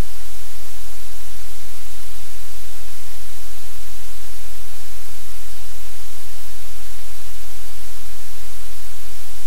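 Loud, steady hiss with a low hum beneath it, unchanging throughout, with no separate sounds in it.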